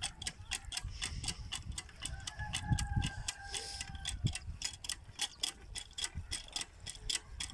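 Hand water pump being worked, its water pouring into a plastic jerrycan, with a few dull knocks from the strokes. A steady rapid ticking, about five ticks a second, runs all through and is the most prominent sound.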